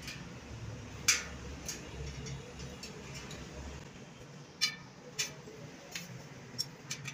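Scattered sharp metallic clicks and ticks, the loudest about a second in, over a low hum: hand tools on a bicycle wheel in a truing stand, a spoke wrench working the spoke nipples and an Allen key set against the rim.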